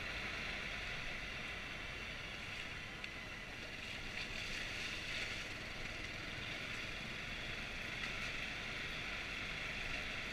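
Honda CRF250L's single-cylinder four-stroke engine running at a steady trail pace, mostly buried under a steady rush of wind noise on the helmet-mounted camera's microphone.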